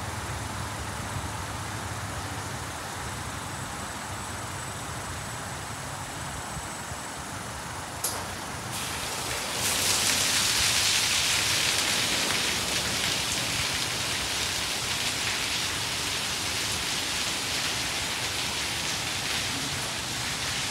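PDQ ProTouch Tandem in-bay automatic car wash running over a car, with a steady hiss of machinery and water. About ten seconds in, a louder, denser spray starts up as the water jets hit the car, and carries on steadily.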